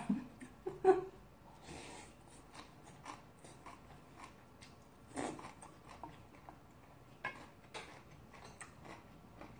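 Chewing sounds from a mouthful of bean sprout rice soup, with scattered light clicks of chopsticks against a stainless steel bowl; a few louder sounds come about one second in and about five seconds in.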